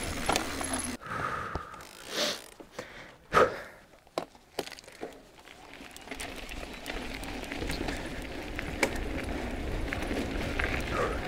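E-mountain bike riding down a dirt forest trail: knobbly tyres rolling over dirt and small stones, steady from about six seconds in, with occasional clicks and knocks from the bike, after a quieter stretch of scattered short sounds.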